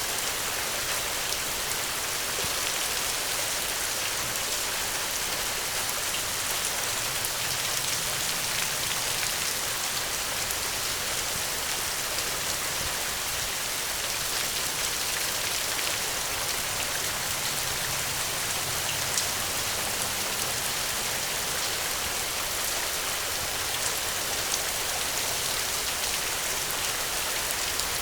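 Steady rain falling on a surface, an even hiss with scattered individual drops ticking.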